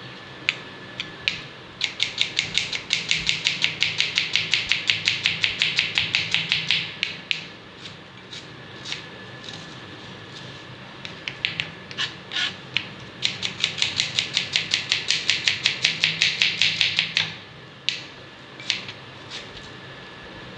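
Kitchen knife chopping onions on a plastic cutting board: two long runs of rapid, even taps, from about two to seven seconds in and again from about thirteen to seventeen seconds, with slower single cuts in between.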